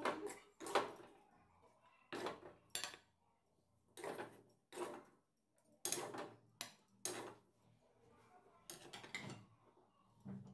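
Flat metal spatula scraping and stirring a thick green pea filling around an aluminium kadai: a series of short, sharp scrapes roughly once a second, some in quick pairs.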